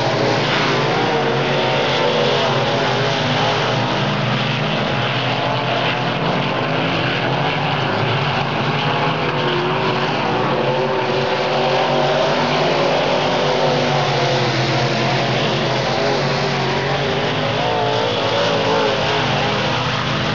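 Several dirt-track race car engines running hard at racing speed, a steady loud drone whose pitch keeps rising and falling.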